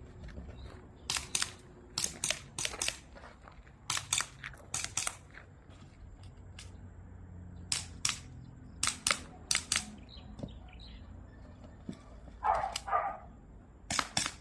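Airsoft gun firing 6mm BBs in a drill: sharp pops, mostly in quick pairs about a third of a second apart, in several strings with pauses between. A brief rattle comes about twelve and a half seconds in.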